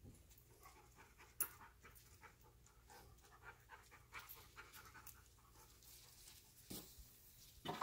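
Scent-detection dog panting and sniffing faintly as it works a search. A single sharp knock about one and a half seconds in.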